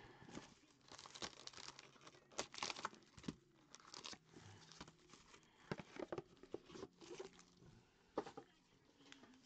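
Faint, scattered crinkling and tearing of a clear plastic wrapper and rustling of a cardboard card box as it is opened by hand, heard as short irregular rustles and clicks.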